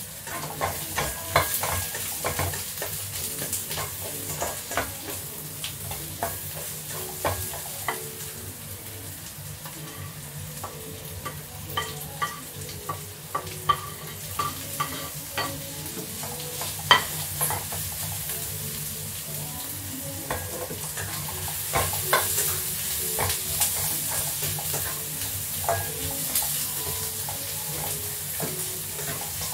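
Spatula stirring and scraping food frying in oil in a nonstick wok, with many sharp taps of the spatula against the pan over a steady sizzle. The sizzle grows louder in the second half.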